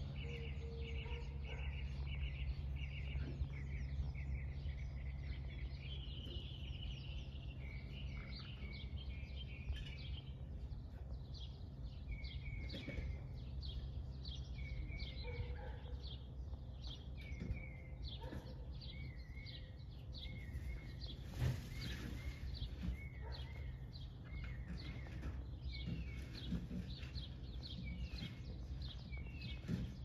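Small birds chirping over and over in short, falling notes over a steady low hum, with one sharp click about two-thirds of the way through.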